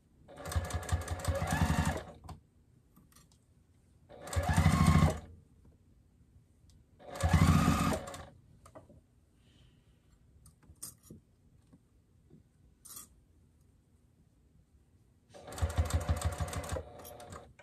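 Juki sewing machine stitching in four short runs, each a second or two long, with pauses and faint handling clicks between as the fabric is repositioned. On two of the runs the motor speeds up as it starts.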